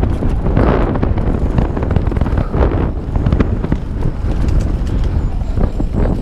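Santa Cruz Bronson mountain bike riding fast down a dirt trail: wind buffeting the GoPro's microphone, tyres running over dirt and rocks, and the bike rattling with frequent sharp clacks.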